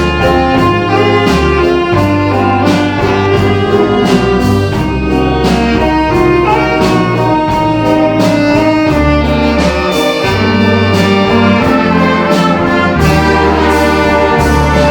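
Wind band of brass and saxophone playing a slow bossa nova arrangement, with a saxophone solo over the band. Sustained bass notes change every second or two under regular soft percussion strokes.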